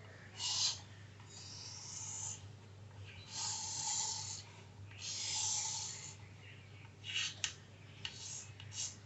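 A pen drawing a diagram in long scratchy strokes, four of them, each half a second to a second long, then a run of short quick strokes and taps near the end.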